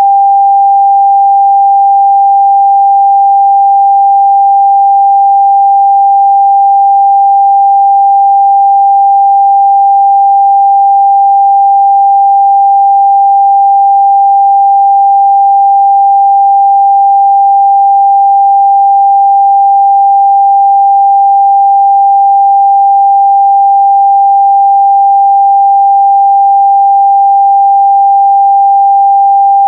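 A steady, loud 794 Hz sine test tone: one pure, unchanging pitch held without a break.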